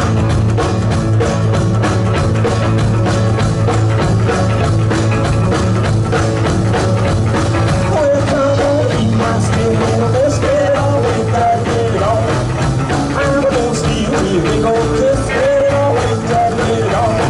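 Live rock band playing a song with a strong bass line and drums keeping a steady beat. A wavering melody line comes in about eight seconds in.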